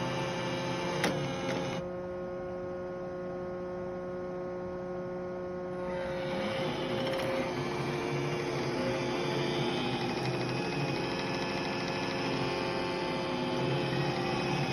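iRobot Roomba robot vacuum running on a carpet: a steady motor hum with a whir of brushes and suction. Its higher hiss drops away for about four seconds near the start, then comes back.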